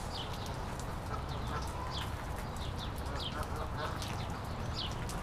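Small birds chirping in short, falling high notes, about one or two a second, over a steady low rumble.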